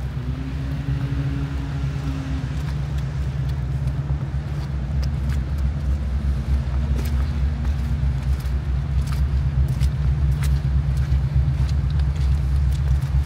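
Strong wind buffeting the microphone: a loud, gusting low rumble throughout, with scattered small clicks in the second half.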